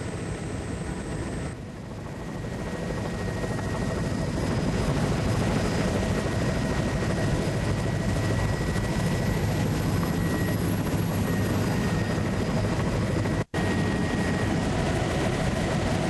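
Steady drone of a low-flying survey aircraft, heard from on board, growing louder over the first few seconds and then holding level. The sound cuts out for an instant near the end.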